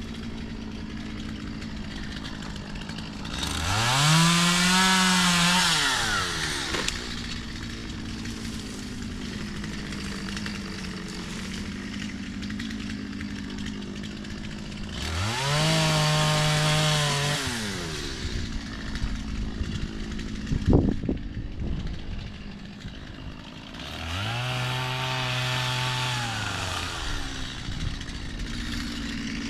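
Gas chainsaw idling, revved up three times to cut through crepe myrtle branches, each rev rising, holding for a couple of seconds and dropping back to idle. A single sharp knock comes between the second and third cuts.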